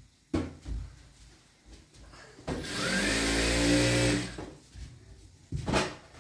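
A small electric motor runs for about two seconds from midway, spinning up with a rising whine and then holding steady before it stops. A few short thumps come near the start and near the end.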